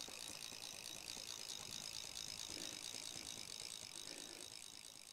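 Fly reel's click-and-pawl ratchet buzzing faintly as line is wound in at the end of fishing, growing quieter near the end.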